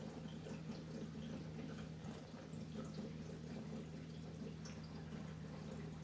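Water trickling and dripping steadily in a sump-filtered aquarium's filtration, over a steady low hum.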